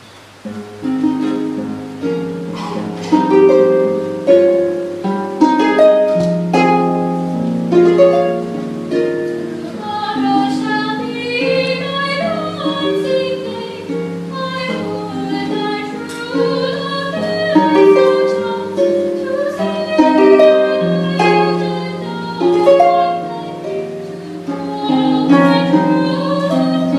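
Lyon & Healy Style 85 concert grand pedal harp playing a solo passage of plucked notes and chords, starting about a second in, the notes ringing on after each pluck.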